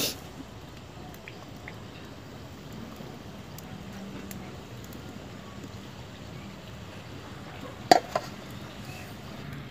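Thekua frying in hot oil in a metal karahi, a steady faint sizzle. About eight seconds in come two sharp knocks close together.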